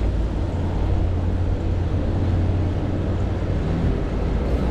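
Street traffic heard from a moving bicycle: cars and a motorbike passing in the next lane, mixed with riding noise as a steady low rumble.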